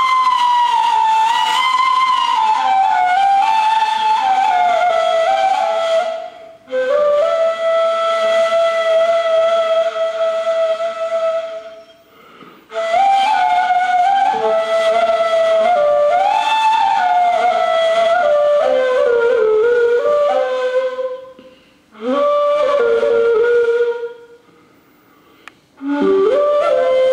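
Ney, the Turkish end-blown reed flute, playing a slow solo melody: long held notes joined by sliding ornaments, mostly drifting downward. The melody comes in phrases broken by brief pauses for breath.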